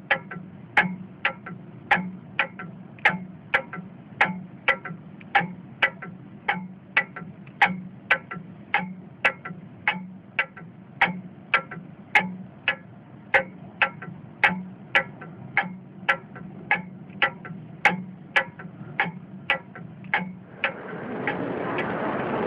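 Steady clock-like ticking, a little over two ticks a second. Near the end a loud, even rushing noise swells in and covers it.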